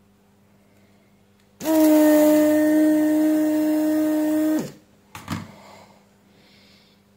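Hot air gun's fan and airflow starting abruptly, blowing steadily for about three seconds, then winding down with a falling pitch. A short knock follows about a second later.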